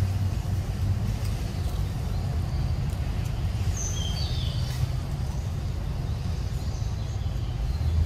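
Steady low rumble, with a few short, high, falling bird chirps about four seconds in.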